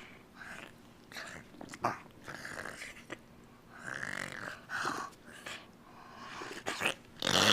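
A dog making short, breathy noises, followed near the end by a sudden louder rush of noise.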